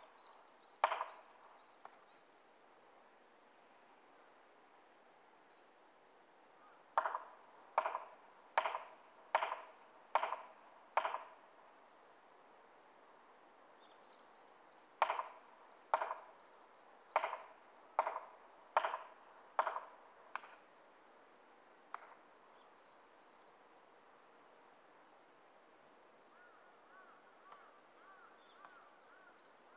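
Felling wedges being hammered into the back cut of a tree: sharp strikes in two runs of about six, a little under a second apart, each with a short ringing tail. The wedges are being driven because the rain-soaked hinge holds the tree up.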